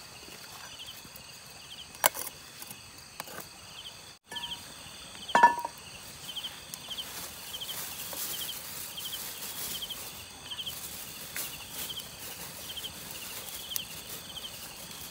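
Night insects chirping in steady, evenly repeated short trills over a crackling wood campfire, with a few sharp snaps; one louder knock with a brief ring comes about five seconds in.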